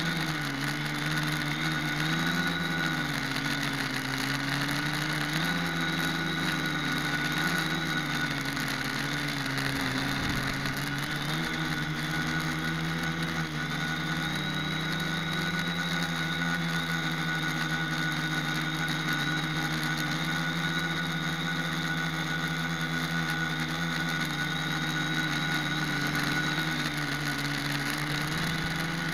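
Quadcopter's brushless motors and propellers buzzing steadily in flight, picked up close by the camera mounted on the craft. The pitch wavers up and down as the throttle shifts, settling steadier in the middle.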